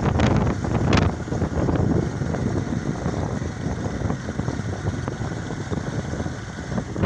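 Wind buffeting the microphone: a loud, uneven low rumble with a couple of sharp gusts in the first second or so.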